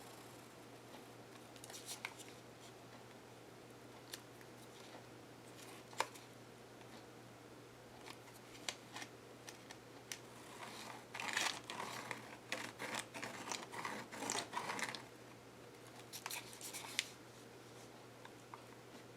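Paper and craft tools being handled on a work table: scattered light clicks and taps, with a run of quick, crisp snipping and rustling sounds about eleven to fifteen seconds in. A faint steady low hum sits underneath.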